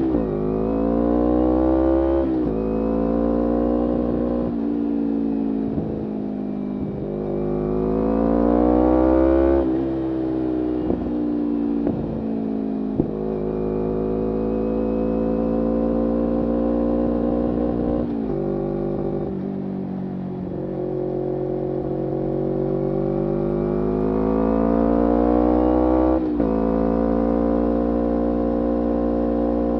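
2011 Kawasaki Ninja 250R SE's parallel-twin engine running through a full Graves racing exhaust while being ridden. The revs climb and then drop suddenly at several gear changes, with a steadier, slowly varying stretch in the middle.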